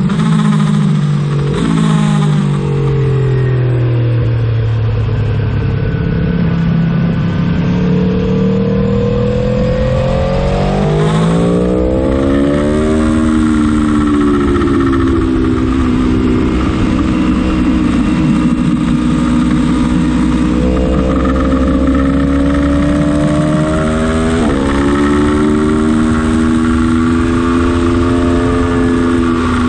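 Aprilia Tuono motorcycle engine at track speed. The revs fall with quick downshifts in the first couple of seconds and sink for a few seconds more. They then climb hard, with sharp upshifts about twelve and twenty-four seconds in.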